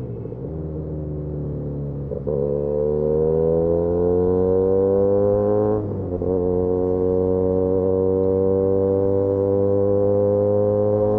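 Benelli 302S parallel-twin engine through an Austin Racing titanium aftermarket exhaust, under way and accelerating. The note sags at first, gets louder as the throttle opens about two seconds in and climbs, drops briefly with an upshift about six seconds in, then climbs steadily again.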